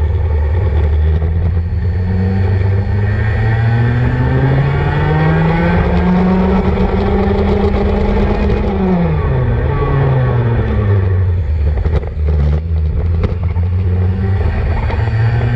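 Racing kart engines at full race pace, heard from on board. Their pitch climbs for several seconds, drops sharply about nine seconds in as the engine slows, then picks up again, with several karts' engine tones overlapping.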